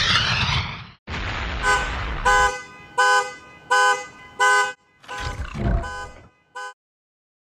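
Car horn sounding in a series of about seven short, evenly spaced honks, over a low rumble that stops partway through; a rushing whoosh fades out at the start and a sound sliding down in pitch comes near the end before the audio cuts to silence.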